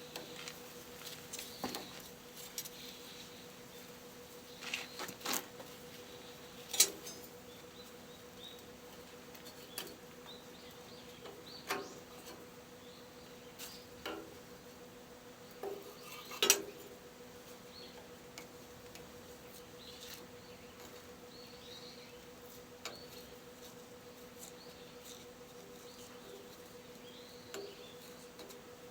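Scattered metallic clinks and knocks of hand tools and metal parts being handled, with two sharper clanks about 7 and 16 seconds in, over a steady faint hum.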